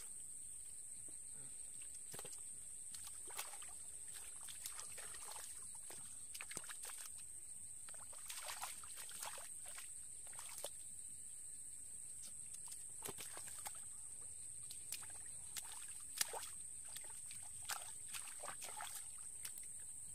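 Hands splashing and slapping in shallow muddy water as fish are grabbed by hand, in irregular short splashes, busiest in the middle and later part. A steady high-pitched whine runs underneath.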